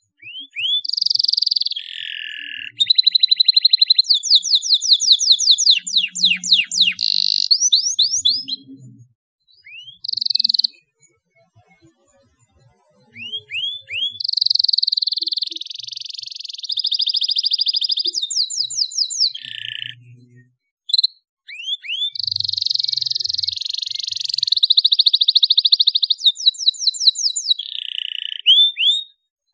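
Domestic canary singing: long song phrases of upward-sweeping chirps, fast rattling trills and buzzy rolls, broken by a pause of a few seconds about a third of the way in and a shorter gap later.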